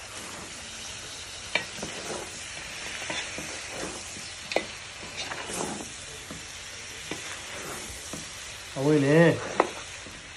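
Food sizzling in a hot wok as a wooden spatula stirs and scrapes through leafy greens, with a few sharp clicks of the spatula against the pan.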